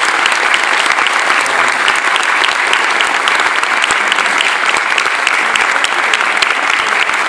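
Lecture audience applauding steadily, welcoming a speaker to the podium.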